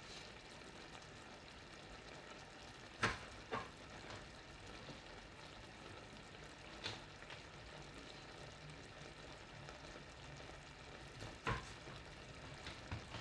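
Creamy chicken sauce sizzling quietly and steadily in a frying pan on the stove, with a few sharp clicks now and then.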